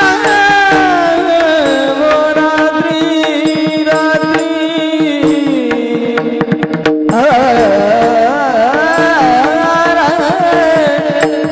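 A man sings a Varkari kirtan melody in long, ornamented notes over a steady drone, with small hand cymbals (tal) struck in rhythm and other percussion. The singing breaks briefly about seven seconds in, then resumes.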